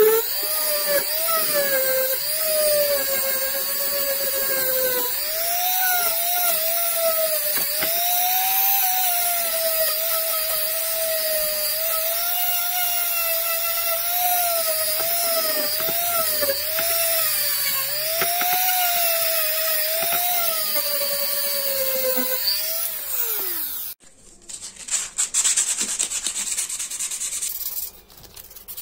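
Handheld rotary tool with a wire-brush attachment running at high speed against rusty metal, scrubbing rust off an old hammer. Its whine wavers up and down as it is pressed in and eased off, and it winds down in pitch near the end. A few seconds of irregular scratchy noise follow.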